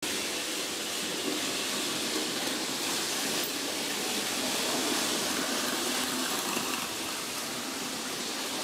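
Märklin model train running on metal track: a steady rolling noise of the electric motor and wheels.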